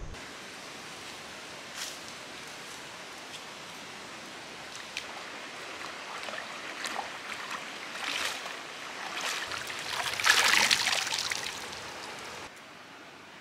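Shallow stream water running, with hand splashing as a bunch of moringa leaves is swished and rinsed in it. The splashing grows and is loudest about ten seconds in, then the sound drops suddenly near the end.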